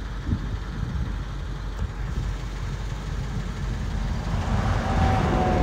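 Wind buffeting the phone's microphone: a low, gusty rumble that grows louder and fuller near the end.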